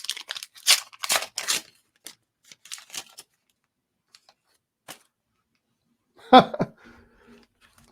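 Trading card pack wrapper being torn open, rapid tearing and crinkling at first, then a few sparser rips. About six seconds in comes one louder short knock or rustle.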